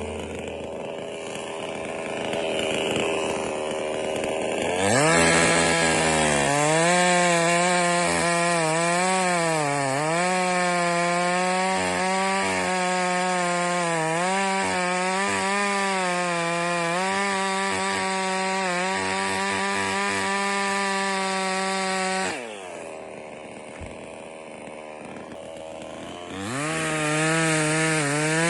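Jonser BS5800 two-stroke petrol chainsaw revving up to full throttle about five seconds in, its pitch sagging and recovering again and again as it works through wood. It drops back to idle for a few seconds past the twenty-second mark, then revs up again near the end.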